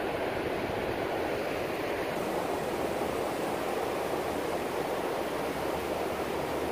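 Surf breaking and washing up a sandy beach, a steady rushing noise.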